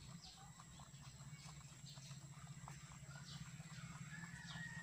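Faint, irregular little clicks and crunches of rabbits chewing feed pellets out of a clay pot, over a low steady hum.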